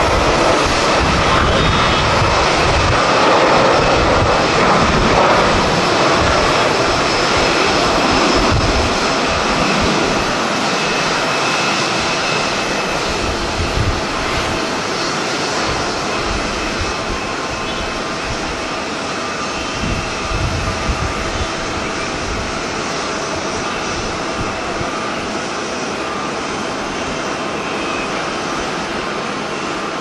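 Jet engines of a Japan Airlines Boeing 737-800, CFM56 turbofans at takeoff thrust. The sound is loudest at first and gradually fades as the airliner climbs away. Gusts of strong wind buffet the microphone throughout.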